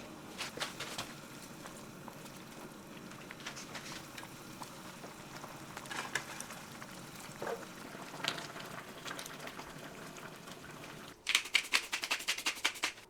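Kitchen utensil sounds during food preparation: scattered clicks and scrapes, then a fast run of sharp taps, about eight a second, lasting almost two seconds near the end.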